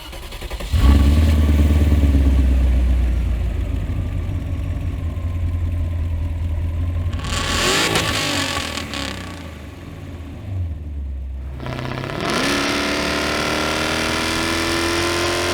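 1992 Audi V8's 4.2-litre V8 engine running: it comes in loudly about a second in and settles into a steady idle, and a brief rev comes around eight seconds. From about twelve seconds it pulls under acceleration, its pitch climbing steadily.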